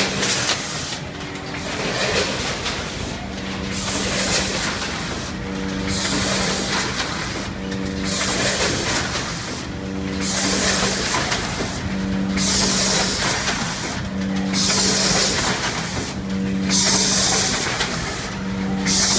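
Rotary premade pouch filling and sealing machine running through its cycle. Its pneumatic cylinders hiss as air exhausts, alternating with a steady hum, in a rhythm that repeats about every two seconds.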